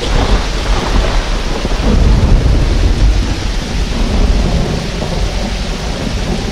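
Thunderstorm sound effect: heavy rain with thunder rumbling, loudest about two seconds in.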